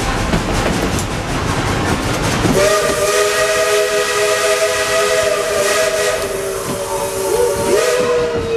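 Steam locomotive whistle blowing one long chime-like blast of several tones at once, starting about two and a half seconds in and held for about six seconds, dropping slightly in pitch as it ends. Before it, the rumble and clatter of the moving passenger cars.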